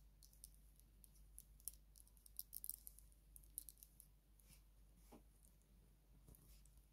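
Faint light clicks of small plastic vintage Lego minifigure parts being handled and pressed together, clustered in the first four seconds, with one soft knock about five seconds in.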